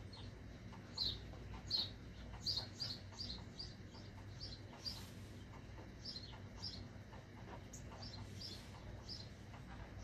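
Felt-tip Sharpie marker squeaking against the latex of an inflated balloon as it is drawn across it: short, high squeaks at irregular spacing, several close together about two to three seconds in, with a faint scratchy rub between them.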